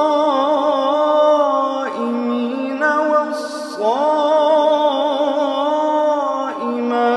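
A man reciting the Quran in a slow, melodic chant (tilawah). He draws out long held notes with a wavering, ornamented pitch, breaking off briefly three times.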